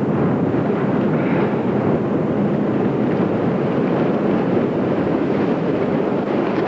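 Container ship's hull breaking through first-year sea ice: a loud, steady, dense noise with no single cracks standing out.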